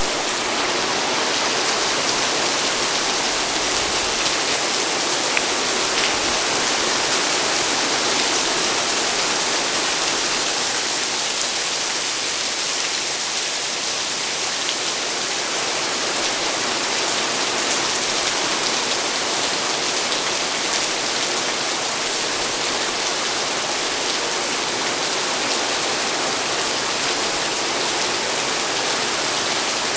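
Heavy rain pouring steadily in a sudden downpour: a dense, even hiss with scattered drop ticks.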